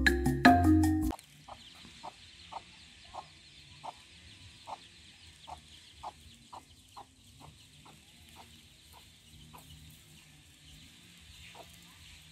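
Marimba-like background music cuts off about a second in. A hen with her chicks then clucks faintly, short clucks about twice a second, over a faint steady hiss.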